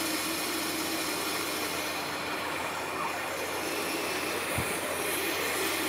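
Waterjet cutting head running at low pressure, about 15,000 PSI: a steady, even hiss of the high-pressure water stream from the orifice, with the pump running. This is the low-pressure stage of purging air out of the high-pressure lines through the orifice.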